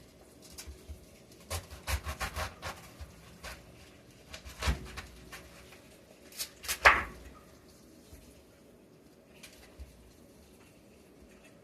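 Knocks, scrapes and clatters of kitchen things being handled: a run of quick knocks about two seconds in, another knock near the middle, and the loudest sharp knock about seven seconds in, then quieter.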